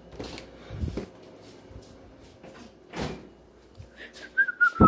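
A few soft thuds and handling noises, then a person starts whistling a tune near the end, with a sharp knock just before the end.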